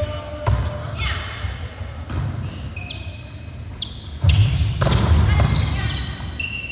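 Volleyball being struck several times in a rally (passes and sets, then a harder spike), with sneakers squeaking on the wooden court and players calling out, echoing in the sports hall.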